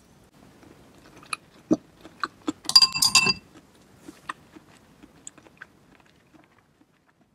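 A spoon and chopsticks set down into an empty ceramic bowl: a few light knocks, then a quick cluster of clinks with the bowl ringing about three seconds in, followed by a few faint taps.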